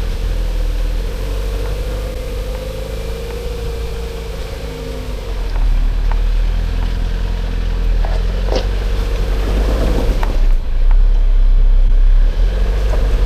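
Jeep Wrangler engine running under load as it crawls over a muddy off-road obstacle, getting louder about halfway through and again near the end, with a few sharp knocks.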